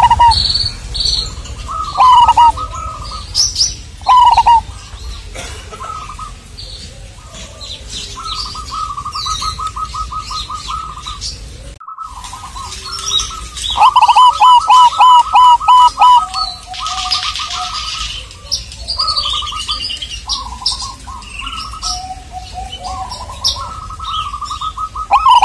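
Zebra doves (perkutut) cooing in runs of short, rapid staccato notes, loudest a little past halfway, with higher chirps of other small birds throughout.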